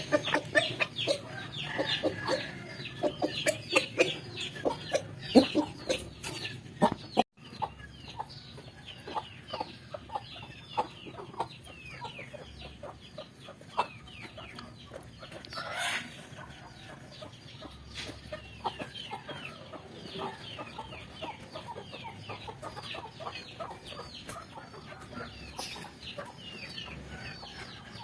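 Village chickens (ayam kampung) clucking, many short 'petok' calls overlapping rapidly. The calls are loudest at first; after a brief dropout about seven seconds in, the clucking goes on quieter and steadier, with one longer call partway through.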